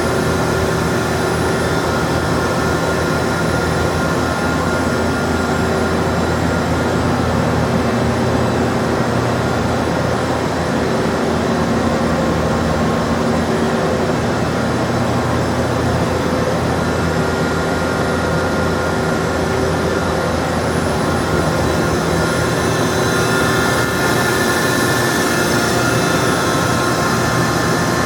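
Steady machinery running without a break: a constant hum carrying several held tones over an even rushing noise.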